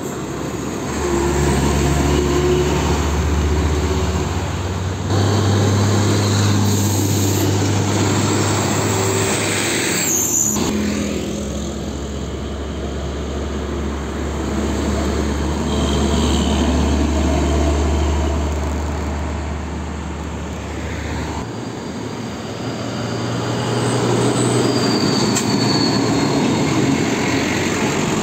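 Heavy diesel trucks, including Hino Ranger trucks, passing close by on a road one after another: engines running with a low drone and tyre noise, swelling and fading as each goes past.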